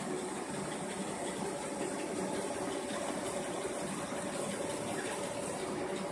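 Cast stretch-film extrusion line running steadily, its motors and rollers making an even machine noise with a couple of faint steady tones as film winds onto a roll.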